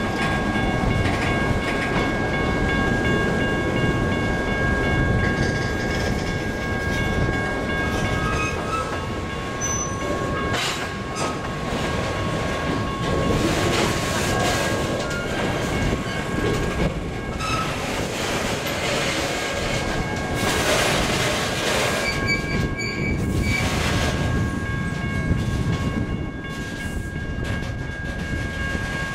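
A slow Southern Railway of BC freight train of loaded centerbeam lumber flatcars rolls past with a steady rumble and clatter of wheels and couplers. Over it runs a steady high-pitched ringing, and louder spells of screech or hiss come about a third and two-thirds of the way through.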